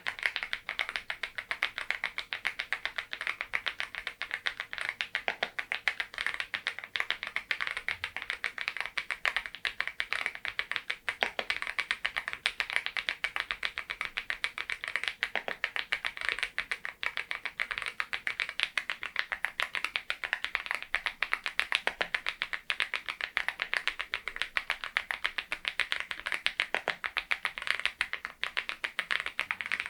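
Continuous typing on a Geekstar GKG87R tenkeyless mechanical keyboard fitted with Balhae Blue tactile switches: a dense, unbroken run of keystroke clacks, many a second.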